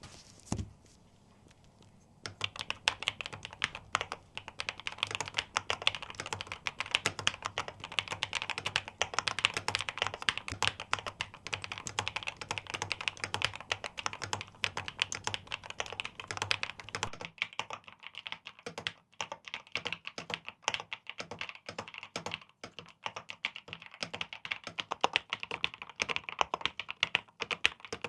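Fast typing on an Epomaker Glyph mechanical keyboard: a dense, uneven clatter of keystrokes, starting about two seconds in after a single click.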